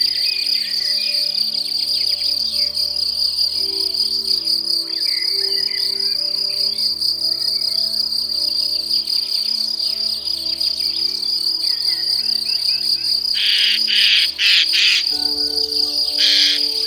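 Steady, high-pitched insect trill, typical of crickets, with scattered bird chirps over low sustained music-like tones. A few short noisy bursts come near the end.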